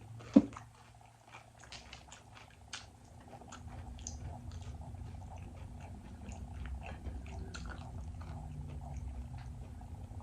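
Close-miked chewing of cheesy Doritos nachos: soft crunches and wet mouth clicks, with one sharp click shortly after the start and a low rumble building from about three seconds in.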